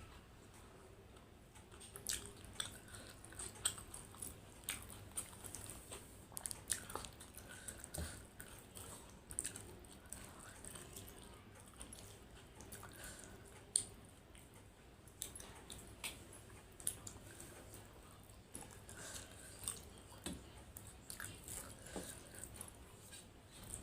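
A person eating close to the microphone, chewing and biting food with irregular clicks and smacks.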